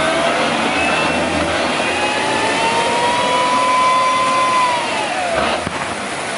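M1 Abrams tank's gas-turbine engine whining under load as the tank pulls through deep mud. The whine climbs in pitch over the first couple of seconds, holds high, then drops away near the end.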